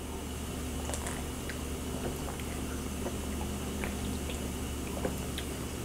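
A person sipping and swallowing sparkling water from a can, heard as faint small ticks and wet sounds over the steady low hum of a dishwasher running.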